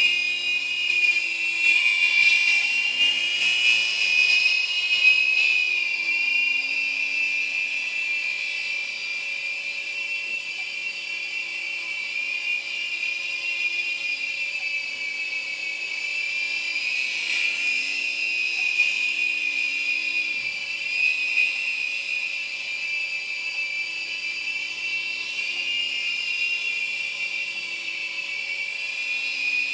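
Amewi Firestorm Pro micro RC helicopter in flight, its small battery-powered electric motors and rotors making a steady high-pitched whine that drifts slightly up and down in pitch as the throttle changes. It is a little louder for the first few seconds.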